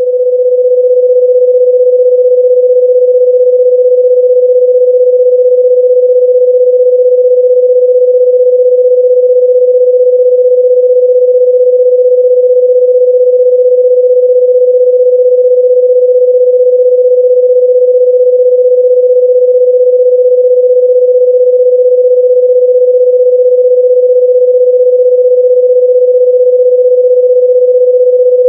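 Loud, steady electronic sine-wave tone at about 500 Hz, a single pure pitch held unchanged.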